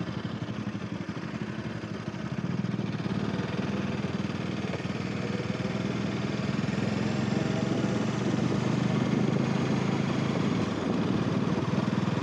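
Bajaj Dominar 400's single-cylinder engine running at low, steady revs with an even thump, getting a little louder about two seconds in.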